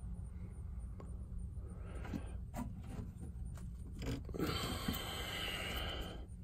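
Hands handling and pressing a small metal EMP Shield unit into place against the truck's wheel-well metal. There are a few light clicks and knocks, then about two seconds of scraping and rustling near the end, over a low steady rumble.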